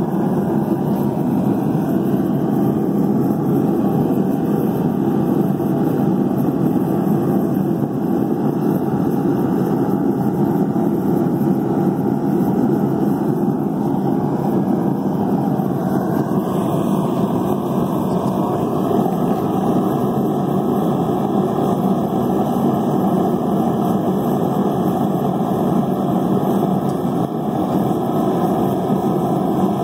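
Blacksmith's forge firing: a loud, steady rushing noise, with a slight change in tone about halfway through.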